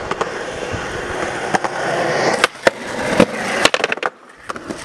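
Skateboard wheels rolling over concrete, then several sharp clacks of the board snapping and landing on the concrete.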